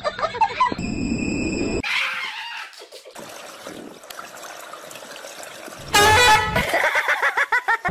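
A loud splash of pool water about six seconds in as a swimmer surges up out of the water, after a stretch of quieter water noise. About a second in there is a brief steady horn-like tone.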